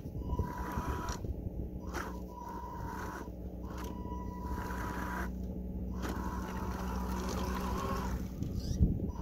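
Electric motor and gearbox of a Tamiya King Hauler RC truck whining steadily as its rubber tracks scrape through soft dirt. A sharp knock near the end.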